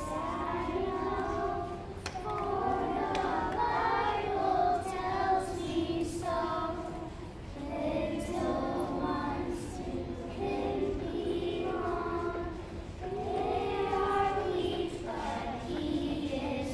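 A group of young children singing a song together, in phrases with short pauses between them.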